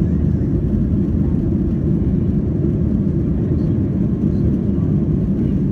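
Cabin noise of a Boeing 737-700 on its takeoff roll, heard from a seat over the wing: its CFM56 engines at takeoff thrust and the wheels rolling on the runway make a loud, steady, low rumble.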